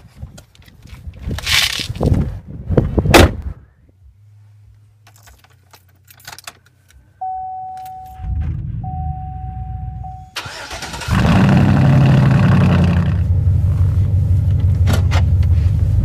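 Chevrolet truck door opening and shutting with several clunks, then a steady electronic chime tone with a short break, then the engine cranking and starting about ten seconds in and settling into a steady idle.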